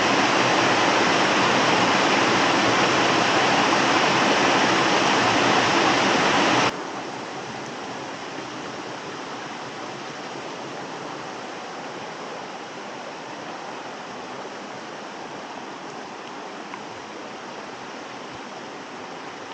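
Rushing water of a rocky stream and cascade, a steady loud noise. About seven seconds in it cuts abruptly to a quieter, steady flow of the stream.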